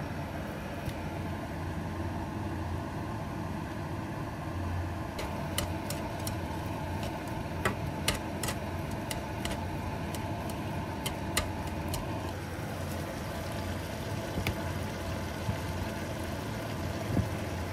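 A steady low hum of kitchen machinery. Chopsticks stirring burdock strips in a pan tap against it in a scatter of sharp clicks, mostly in the middle.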